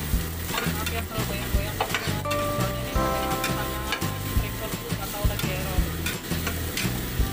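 Ground spice paste with lemongrass and bay leaves sizzling as it is sautéed in oil in a nonstick frying pan, a spatula scraping and tapping against the pan many times as it is stirred. Background music plays underneath.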